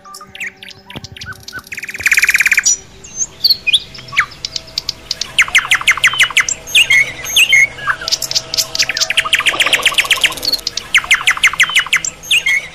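Birds chirping in fast, trilled runs of sharp notes, coming in several loud bursts.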